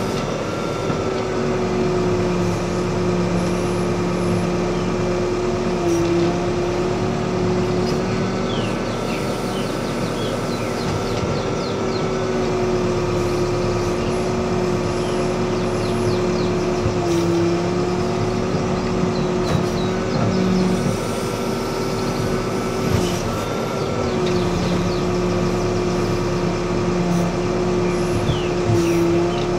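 Backhoe loader's diesel engine running under load as the backhoe arm digs and lifts wet clay, with a higher hydraulic whine coming and going. The engine pitch sags briefly three times as the hydraulics pull it down.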